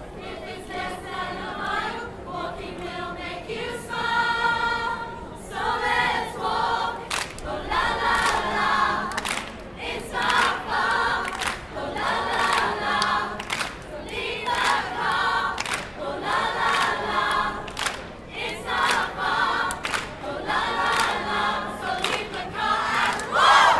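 A large group singing a song together over a steady beat, with a loud shout near the end.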